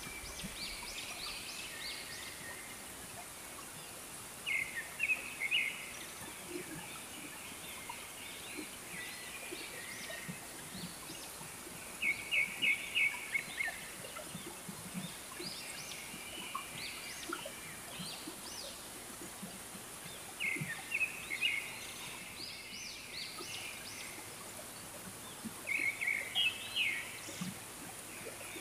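A bird calling in short bursts of rapid high notes, about four loud bursts several seconds apart with fainter calls between, over a steady high hiss.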